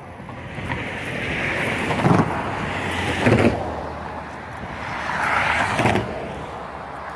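Two road vehicles passing in turn on a highway, each one's tyre noise swelling and fading, with three short thumps about two, three and six seconds in.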